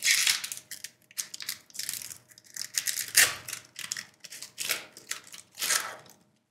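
Foil wrapper of a Grand Archive booster pack crinkling and tearing as it is ripped open by hand: a quick run of sharp crackles and rips, loudest about three seconds in.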